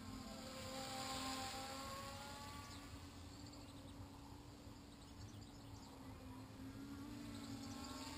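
Faint, steady buzz of a Flyduino Nanoquad's small motors and propellers in flight. Its pitch swells and bends about a second in, then settles again.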